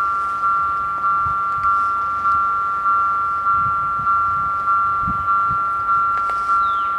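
Level crossing warning bells ringing, a steady two-tone ding re-struck evenly about five times every three seconds, warning that a train is approaching.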